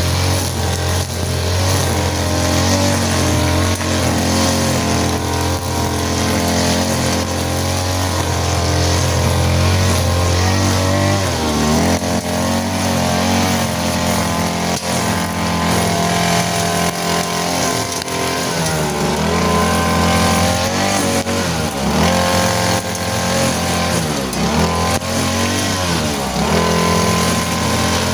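Small engine of a grass cutter running at working speed. Its pitch dips and recovers several times, around the middle and in the second half, as the cutter bogs down under load.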